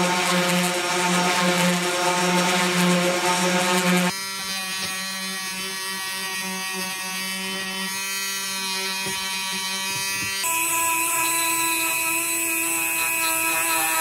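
Three power sanders, edited back to back. An electric random orbital sander runs with a pulsing hum for about four seconds. It cuts to a rotary tool sanding plastic with a steady whine, then, about ten seconds in, to a smaller rotary tool with a higher whine.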